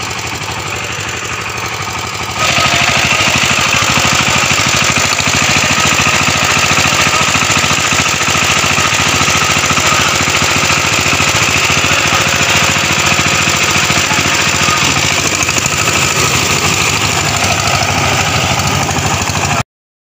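Power tiller's engine running steadily while the machine ploughs through a flooded paddy field. It gets louder about two seconds in, and the sound drops out briefly near the end.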